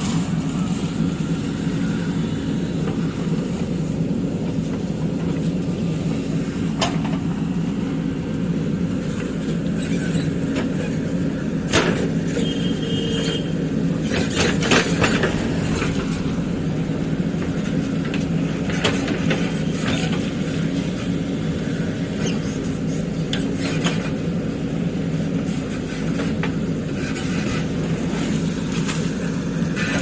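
JCB backhoe loader's diesel engine running steadily under load as the backhoe digs, with scattered clanks and scrapes of the bucket in soil and stones and a short squeal about twelve seconds in.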